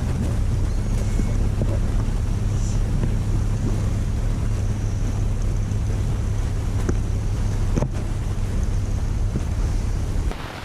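A motor running steadily at a constant low hum, with wind buffeting the microphone; a few knocks sound over it, and the hum cuts off near the end.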